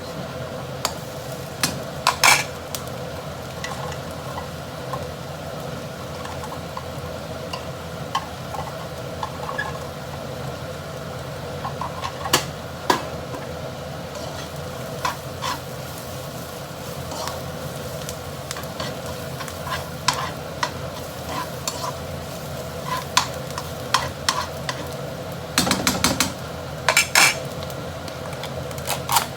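Udon noodles being stir-fried in a pan: a steady sizzle, with a metal spatula clinking and scraping against the pan at irregular moments, busiest near the end.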